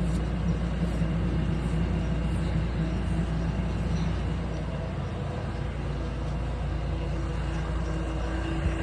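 Steady drone of farm machinery running, with a constant low hum and no breaks.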